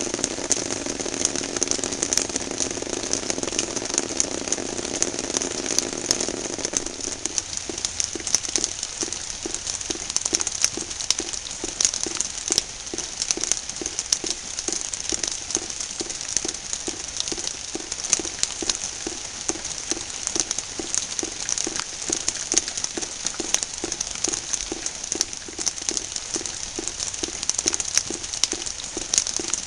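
Rain pattering and crackling on a green plastic tray, a dense spray of small drop clicks. A low steady hum underneath stops about seven seconds in, and after that a soft low beat repeats two or three times a second.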